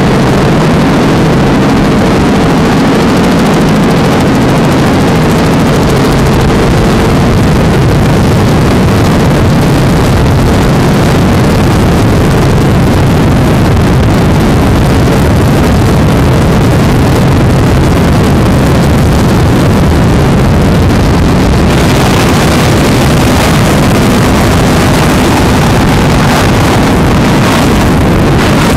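Loud, steady engine drone mixed with rushing wind and water noise, from high-speed powerboat running; the noise turns hissier about 22 seconds in.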